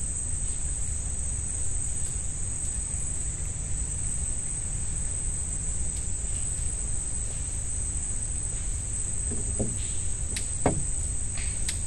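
Night insects giving a steady, unbroken high-pitched trill, over a low steady rumble. A few brief sounds break in near the end, the loudest a short sharp one.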